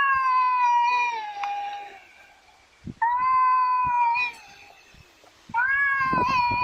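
Domestic cat meowing in three long, drawn-out yowls, each holding a steady pitch and dropping at its end, with short pauses between them.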